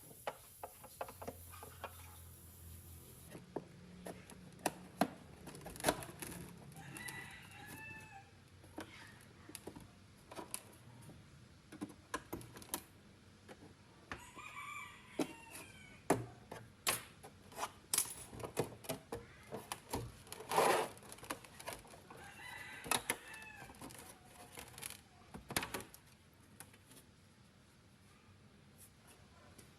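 A rooster crowing three times, about eight seconds apart, each crow a drawn-out call that rises and falls in pitch. Scattered sharp clicks and knocks run between the crows, with a louder knock about twenty seconds in.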